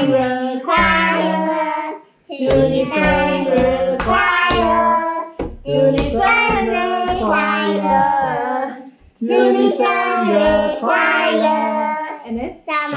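Young children and adults singing a birthday song together, led by a child's voice, in phrases with short breath pauses about two and nine seconds in.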